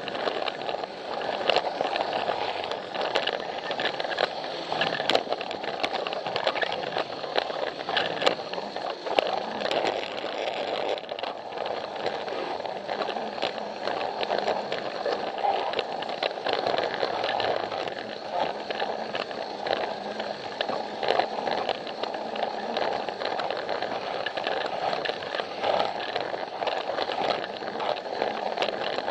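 Plarail battery toy train running along plastic track: a steady small-motor and gearbox whir with frequent irregular clicks and rattles from the wheels on the track.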